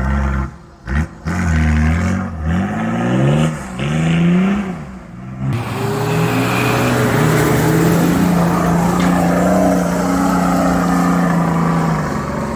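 Four-wheel drive's engine revving up and down in quick repeated bursts, then held at high, fairly steady revs from about five and a half seconds in.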